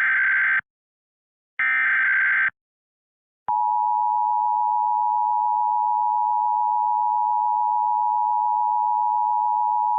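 Emergency Alert System signal. The end of one SAME digital header burst and one more full burst, each a buzzy, warbling data squawk about a second long. About a second later the EAS two-tone attention signal starts, a loud steady dual tone that holds.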